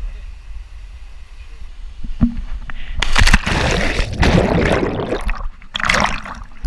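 Water splashing and churning close to the microphone, in loud bursts, the biggest starting about three seconds in and another near the end.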